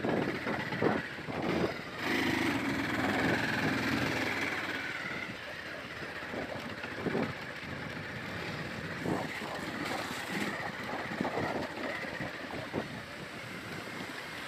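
Motorbike riding over a rough, muddy dirt track: the engine runs under a continuous rumble of road noise, with uneven jolts in the first couple of seconds and a louder stretch a few seconds in before it settles.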